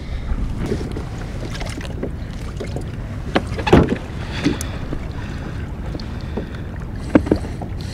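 Wind buffeting the microphone on a fishing kayak at sea, with water sloshing against the hull. A few short knocks and clicks come through, the loudest a little under four seconds in.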